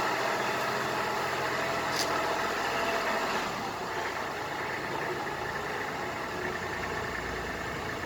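GL27 tractor's diesel engine idling steadily, a little quieter from about halfway through.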